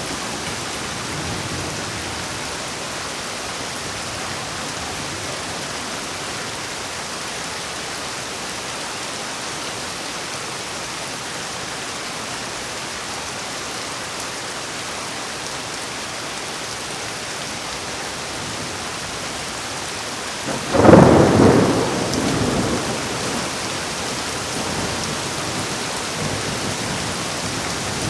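Steady heavy rain, with a sudden loud clap of thunder about three-quarters of the way through that dies away over a couple of seconds.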